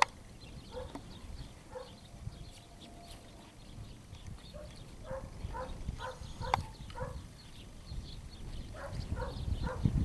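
A dog barking repeatedly in short bouts of several barks, about two a second. A single sharp click comes about six and a half seconds in, and wind rumbles on the microphone near the end.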